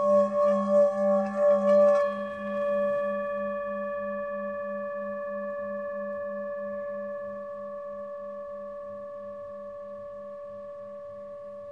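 Thado Batik Himalayan singing bowl tuned to G3, sounded at the rim for the first two seconds, then left to ring on its own. Its low tone and several higher overtones hold steady and fade slowly, and the low tone pulses in an even wavering beat.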